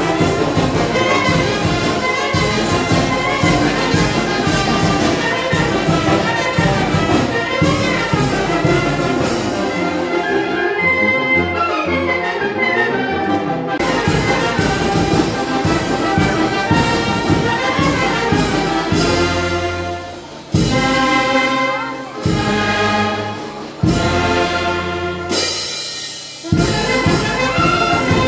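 Oaxacan village wind band of clarinets, saxophones and brass playing a piece together. A little before halfway the bass parts drop out for a few seconds, and near the end the band plays a series of long held chords, each broken off briefly before the next.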